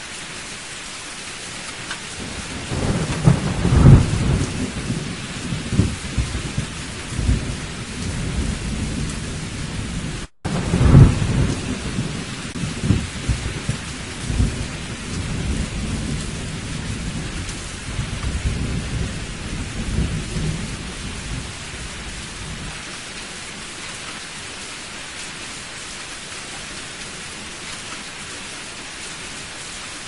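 Steady heavy rain with a long roll of thunder that builds a few seconds in, peaks twice and fades away after about twenty seconds. The sound cuts out for a split second about ten seconds in.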